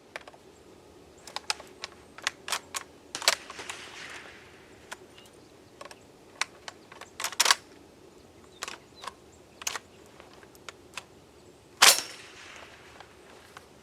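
Centurion BP12 box-magazine semi-automatic shotgun firing Rio shotgun shells: three louder shots about four seconds apart, with clicks and clacks of the action being worked by hand between them. The cheap shells are not cycling the action.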